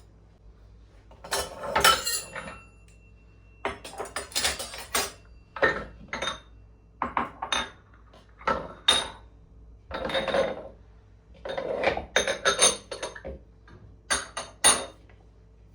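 Dishes and cutlery clinking and clattering as they are handled and set down, a string of short clatters with brief pauses between them.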